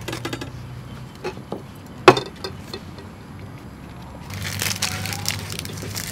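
Tableware and food being handled: light clicks and one sharp knock about two seconds in, then a stretch of rustling handling noise from about four seconds in, over a steady low hum.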